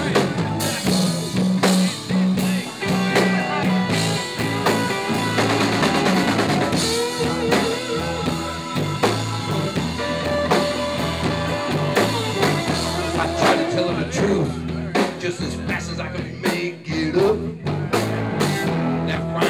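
Live band playing an instrumental break: electric guitars and keyboard over a drum kit with a steady beat and a low bass line.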